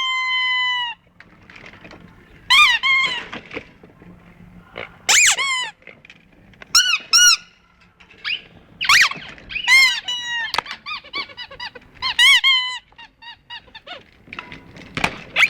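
Squeaky toys squeezed one after another: about a dozen honking squeaks, some short and some drawn out for about a second, several bending in pitch, with short pauses between them and a quick run of little squeaks midway.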